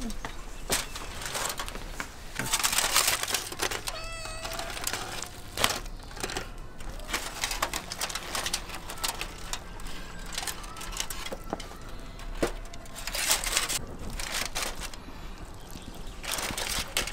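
Aluminium foil crinkling and rustling in irregular bursts as it is peeled back from a metal roasting tray, with a few sharp clicks. A short wavering call sounds about four seconds in.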